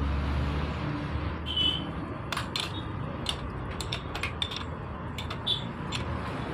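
Irregular metallic clicks and clinks of a hand tool working the rear axle nut of a motorcycle wheel, some with a short ring, over a low background hum.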